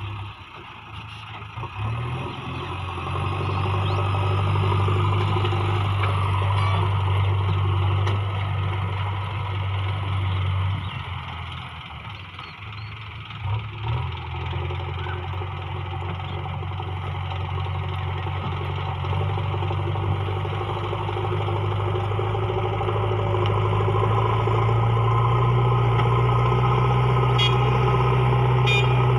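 JCB 3DX backhoe loader's diesel engine running under working load. It picks up about two seconds in, eases off around the middle, then climbs again and runs a little higher and louder near the end.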